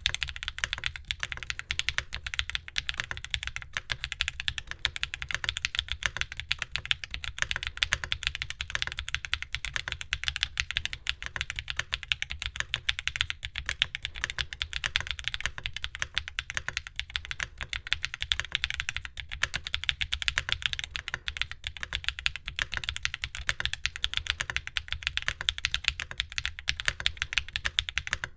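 Continuous fast typing on a Mode Loop TKL mechanical keyboard fitted with Aflion Melody light tactile switches, GMK keycaps and an aluminium plate on lattice mounts: a dense run of keystroke clacks, each a bright click over a low thud.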